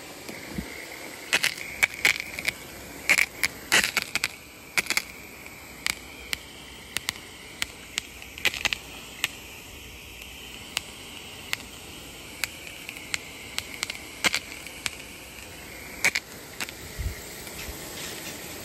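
Hose-end sprayer on a garden hose spraying a steady stream, a continuous hiss as the water hits grass and mulch, with scattered sharp clicks and crackles throughout, thickest in the first few seconds.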